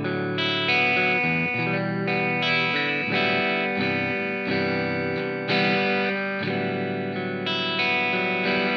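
Electric guitar (PRS S2 Vela, both pickups) played through a Hotone Nano Legacy Britwind amp on its British Invasion channel into a 10-inch Vox speaker cabinet, heard through an ART AR5 active ribbon microphone. Chords are strummed and left to ring, with a new chord struck every second or two.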